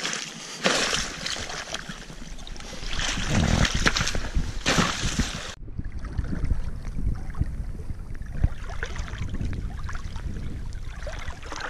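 Thin shore ice crunching, cracking and splashing under a person's boots as they step out through it. About halfway in the sound cuts off abruptly to softer water sloshing and lapping as they wade in the open water.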